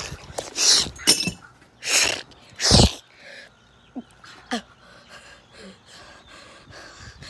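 A person's breath huffing close to the microphone: four loud, short, breathy blasts in the first three seconds, then much quieter sounds.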